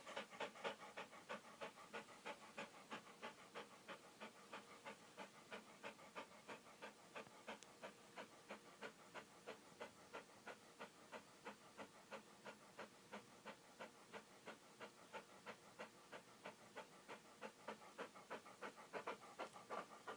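Dog panting steadily, fast and even, about three to four breaths a second.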